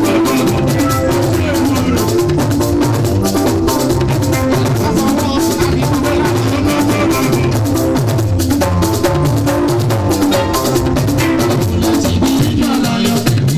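Instrumental music with drums and percussion over a moving bass line, keeping a steady beat.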